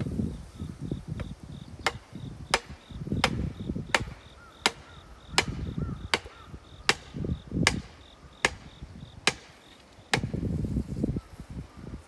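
A heavy hammer striking the top of a wooden pole to drive it into the ground for a rice drying rack: about ten sharp blows, one every three-quarters of a second or so, from about two seconds in until about ten seconds in. Insects chirp steadily behind.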